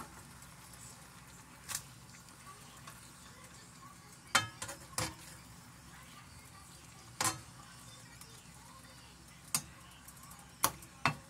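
Steaks frying in butter in a pan, a steady sizzle, while a slotted spatula turns them over with several sharp clicks and knocks against the pan.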